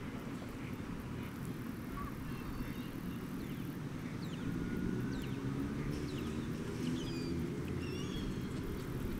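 Outdoor ambience: a steady low rumble of distant traffic that swells slightly about halfway through, with birds giving short, high chirps through the middle.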